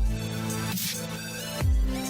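Electronic background music in a dubstep style: a deep bass note slides down at the start and again near the end, over held synth chords.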